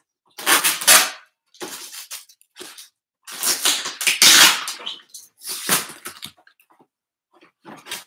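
Packing tape being ripped off a cardboard box in several long tearing pulls, the loudest about four seconds in, with cardboard flaps rustling and crackling near the end.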